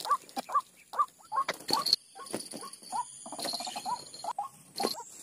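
White-breasted waterhen calling: a run of short, rising 'wak' notes, two or three a second, with a few sharp rustles in between.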